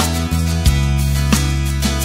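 Background music with guitar, new notes or chords struck several times a second.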